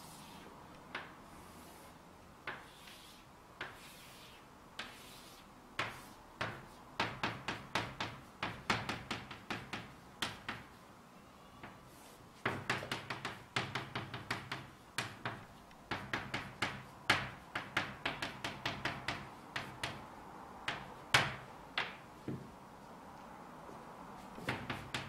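Chalk on a blackboard: a few soft strokes and taps at first, then dense, irregular clusters of sharp taps and scratches as lines and characters are written, broken by short pauses.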